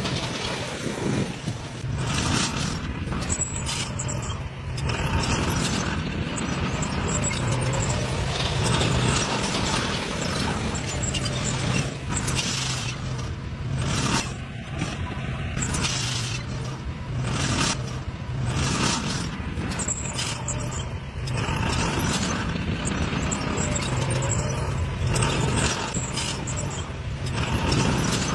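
Shantui bulldozer at work, its diesel engine running steadily under a stream of irregular clanks and knocks from the working machine.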